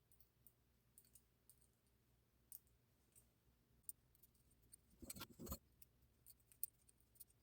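Faint scattered clicks and small metal ticks from hose clamps being handled and fitted onto a diesel heater's exhaust pipe, with a louder cluster of clatter about five seconds in.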